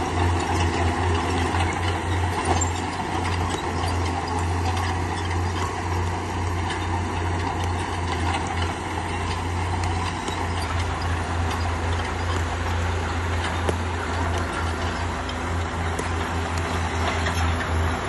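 Bulldozer's diesel engine running steadily with a low drone while it pushes stone, with metallic clanking and rattling over it.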